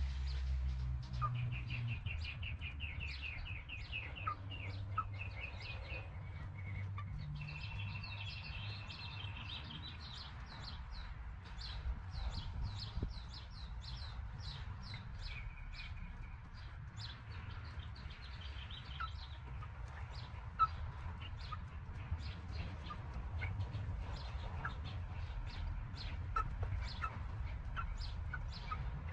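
Backyard chickens with small birds chirping in the background: a rapid high trill repeats for the first few seconds, then short high chirps keep coming, over a steady low rumble.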